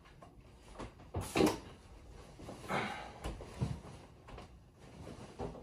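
A few knocks and a cloth rustle: a lab coat being taken off and hung on a closet door, with a clipboard set down. The loudest knock comes about a second and a half in, the rustle around three seconds in.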